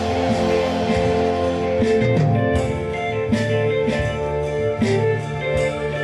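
Instrumental band music led by guitar, with held notes and a regular percussion beat that becomes clear about two seconds in.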